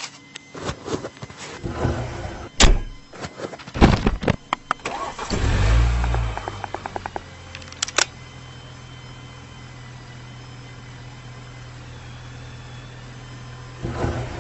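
Car engine being started: a string of clicks and knocks, then the starter cranks and the engine catches about five seconds in and settles into a steady idle, with one sharp knock a couple of seconds later.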